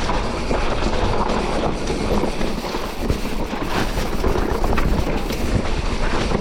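A bike being ridden over a rough trail: a steady rumble and rattle of the machine jolting over the ground, with wind buffeting the camera's microphone.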